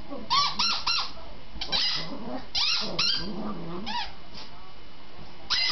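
Dog at play with its toy: a dozen or so short, high-pitched squeaks in quick runs.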